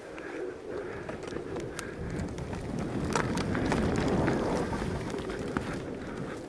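Mountain bike rolling downhill over a dirt forest trail: knobbly tyres on loose soil with quick clicks and rattles from the bike, and wind buffeting the mount-mounted microphone. It grows louder about two seconds in as the bike picks up speed.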